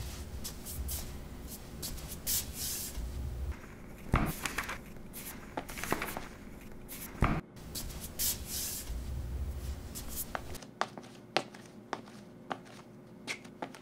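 Paper rustling and flicking, as of book pages being handled and turned, with many scattered sharp clicks and a couple of louder knocks.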